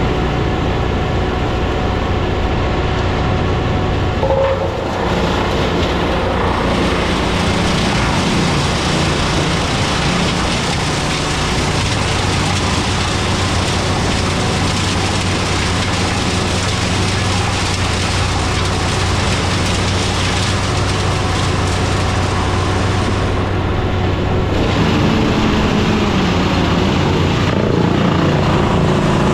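Large engine running steadily at high revs, its pitch dipping and shifting briefly about five seconds in and again near the end, as when the machine takes a load.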